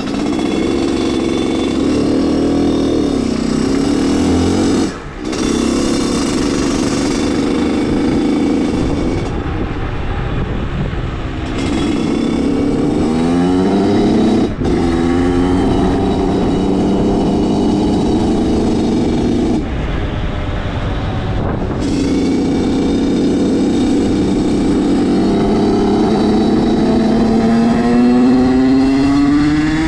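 Engine of a small motorbike tuned with an 86 TPR kit, running hard at high revs while being ridden. The revs drop sharply for a moment about five seconds in and again at about fourteen seconds, then climb in rising sweeps, most clearly near the end.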